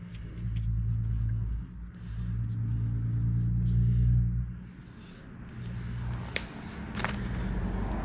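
Tape pulled off its roll in two long, low, buzzing pulls as it is wound around a ring spanner, each pull stopping sharply; a couple of light clicks follow near the end.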